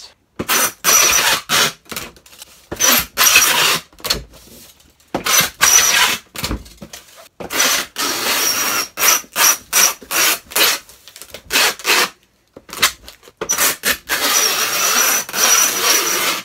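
Packing tape being pulled off a handheld tape gun dispenser along the seams of a cardboard box to seal it. It comes as a quick series of loud rasping pulls, some short and some over a second long, the longer ones carrying a thin high whine.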